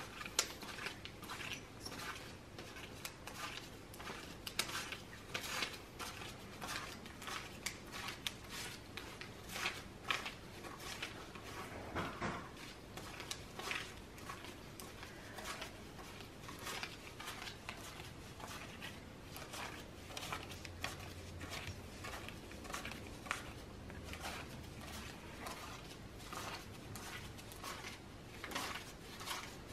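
Paper banknotes being counted by hand: a steady run of crisp flicks and rustles, a few a second, as bills are peeled off a stack one at a time and laid down.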